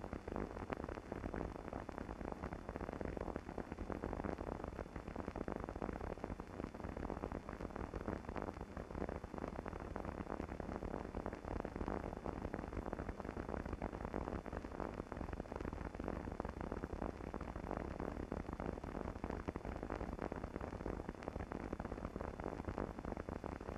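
Steady hiss with no distinct sounds: the empty noise floor of a silent archival film transfer.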